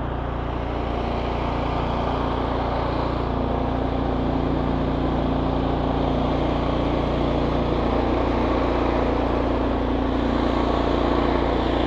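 A car being driven, with steady engine and road noise at an even level and a constant low hum beneath.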